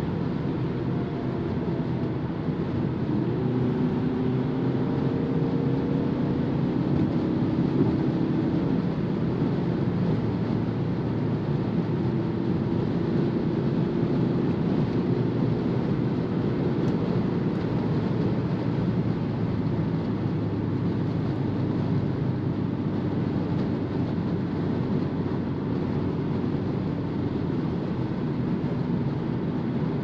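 In-cabin noise of a BMW 220d xDrive Gran Coupe cruising at motorway speed: steady tyre and wind noise with a low drone. A faint hum rises in pitch about three seconds in and fades near nine seconds, then returns briefly a little later.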